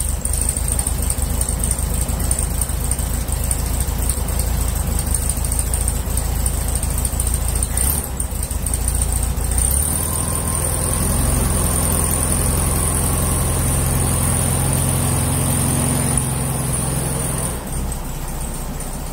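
Air-cooled flat-four engine of a VW Beetle running, fed by a Maxpeedingrods aftermarket carburetor whose choke is being checked. About ten seconds in the engine note changes and a faint whine joins as the car is backed up, and near the end the engine sound drops away.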